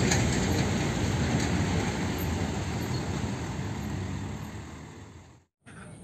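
Hino concrete mixer truck driving on a road: steady diesel engine and road noise with traffic. It fades gradually and cuts off about five and a half seconds in.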